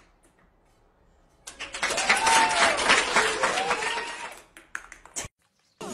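Applause with cheering voices rising and falling, starting about a second and a half in and dying away near the end.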